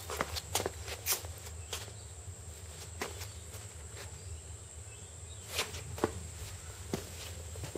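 Scattered light footsteps and handling clicks from someone moving about on a concrete floor, irregular and a few seconds apart, over a steady low hum.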